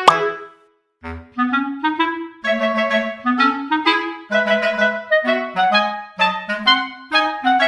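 Background music: a bouncy melody of short, detached notes. It breaks off briefly about a second in, then picks up again.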